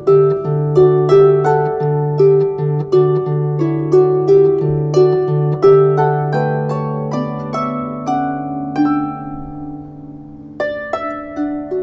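Lever harp played solo: a slow hymn tune of plucked notes over a ringing bass note. The phrase slows and dies away near the end, then a new phrase begins with a louder plucked chord.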